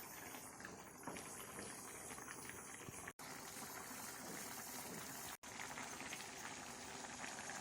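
Fish curry simmering in a pan: a faint, steady bubbling crackle, cut off by two very short dropouts.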